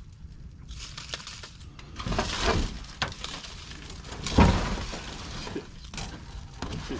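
Sheet of corrugated metal roofing rattling and scraping as it is held up and shifted by hand, with rustling in dry leaf litter; a few separate clanks, the loudest about four and a half seconds in.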